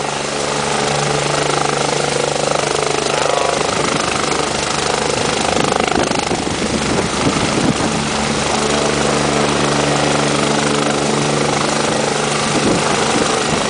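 BK 117 twin-engine helicopter running loudly at lift-off power, a steady mix of turbine whine and rotor beat. About halfway through the sound turns rougher for a couple of seconds before steadying again.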